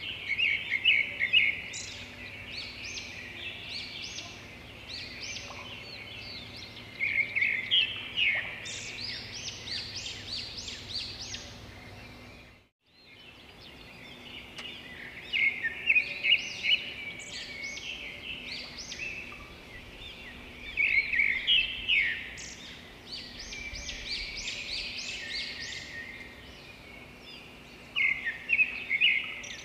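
Small birds chirping and twittering in bursts every several seconds, over a faint steady hum, with a brief gap about 13 s in.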